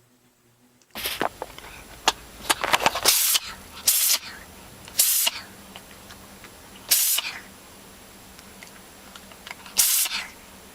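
A pet sneezing repeatedly: about five short, sharp sneezes a second or more apart, starting about a second in, with small clicks and rustling between the first ones.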